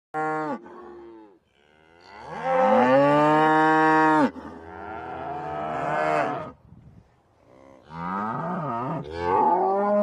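Young cattle mooing: a short moo, then four long drawn-out moos, some rising in pitch as they begin and one wavering up and down.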